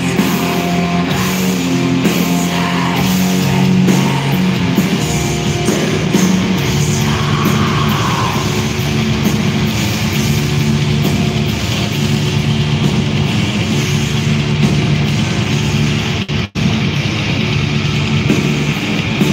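Black metal band playing live at full volume: distorted electric guitars holding long, low chords over dense drumming and constant cymbals. The sound cuts out for an instant about three-quarters of the way through.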